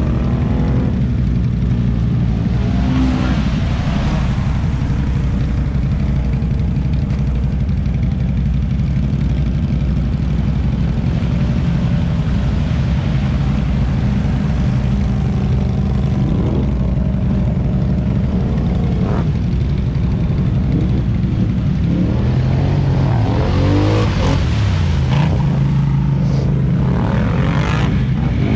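Several ATV engines running in a flooded mud hole, with one engine idling steadily close by. In the last third, engines rev up and down, with another burst of revving at the very end.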